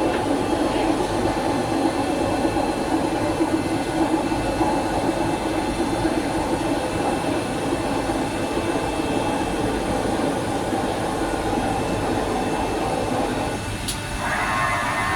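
WOTAN Rapid 2R/12,5 CNC table-type drilling and milling machine running with a steady mechanical drone. About fourteen seconds in there is a sharp click, and the sound changes to a higher, steady whine.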